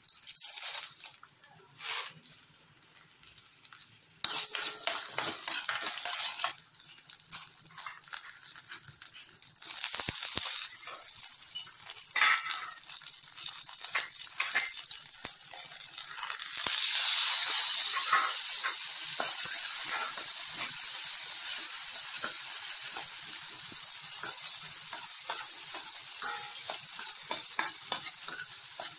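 Shallots, dal and cumin frying in oil in a steel pan, sizzling unevenly at first, with a spoon stirring and scraping. About 17 seconds in, the sizzle grows much louder and stays strong, as chopped tomatoes go into the hot oil.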